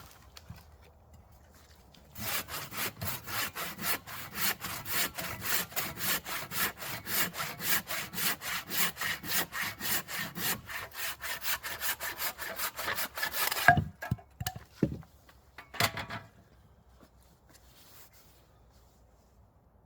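Hand saw cutting through a piece of wood with quick, even strokes, about four a second. The sawing stops about fourteen seconds in with a sharp knock, followed by a few lighter knocks.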